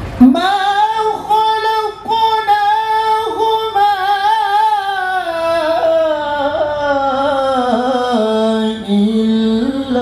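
Adult male qari reciting the Quran in the melodic tilawah style: one long, ornamented melismatic phrase with wavering turns, starting high and slowly descending in pitch, with a short break about two seconds in and a rise again near the end.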